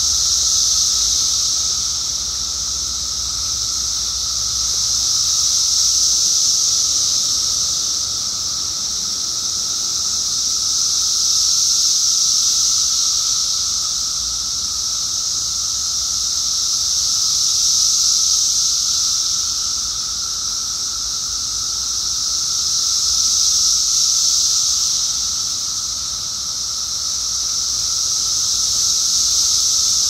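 Chorus of periodical cicadas (Brood X) in the trees: a dense, high-pitched drone that swells and fades about every six seconds, over a steadier, lower hum from other singing cicadas.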